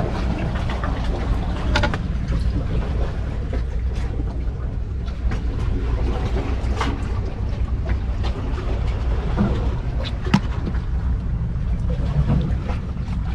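Steady low outdoor rumble with a few faint clicks and taps scattered through it.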